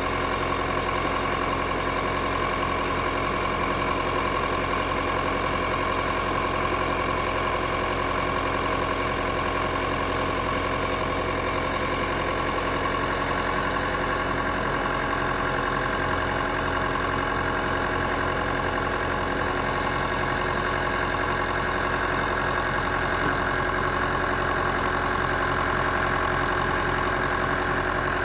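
David Brown 990 tractor engine running at a steady speed.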